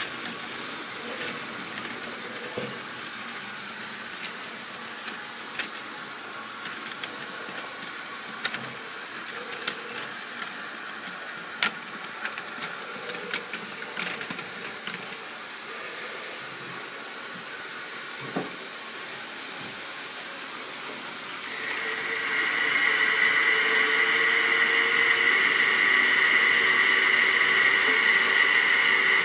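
Scattered small clicks and taps of plastic model tank wagons being handled on the track, over a steady hiss. About 22 seconds in, a model railway train starts running: a steady high electric-motor whine with the wheels running on the rails.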